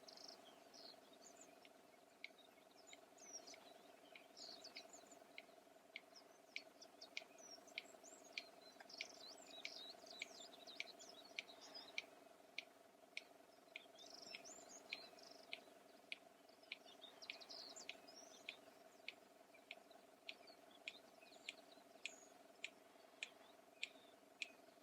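Red-crested bustard giving its click call: a long, even series of sharp clicks, about two a second, made by snapping the bill. Other birds chirp in the background over a steady insect drone.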